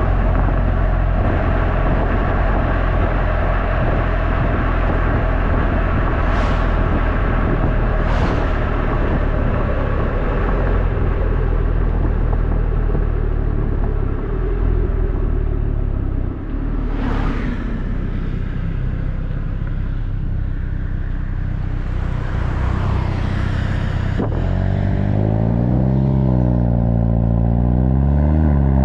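Volkswagen Golf GTI TCR's turbocharged 2.0-litre four-cylinder running through its stock stainless-steel exhaust. The engine note sinks gradually through the middle as the revs drop, then rises and falls several times near the end as the engine is revved.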